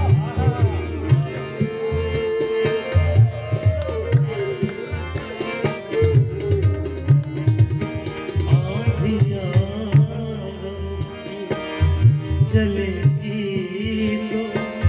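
Instrumental interlude of a ghazal: tabla playing a steady rhythm under held harmonium chords and a bamboo flute melody.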